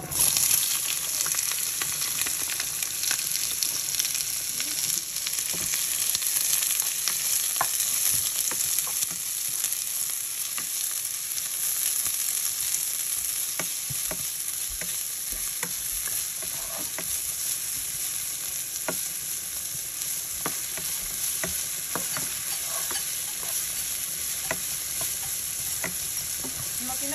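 Sliced onion sizzling in hot oil in a nonstick frying pan, starting suddenly as the onion goes in, while it is browned. A plastic spatula stirring it scrapes and clicks against the pan now and then.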